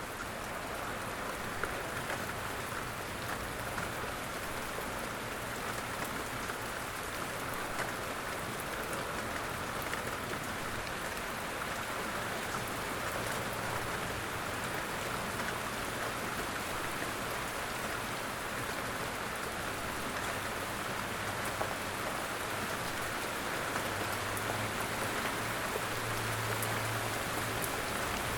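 Steady light rain falling, an even hiss dotted with the ticks of single drops. A low hum sits underneath and grows stronger near the end.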